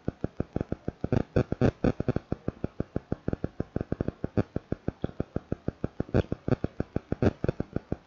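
A rapid, very regular ticking pulse, about seven beats a second, with a few sharper clicks among it.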